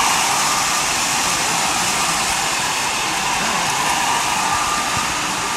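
Steady noise of a crowded exhibition hall with faint voices in it, as a model train runs on the layout.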